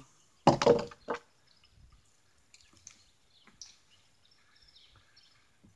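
Chain-linked nunchucks being handled: a couple of short knocks and rattles in the first second. After that there is only a quiet outdoor background with faint, scattered bird chirps.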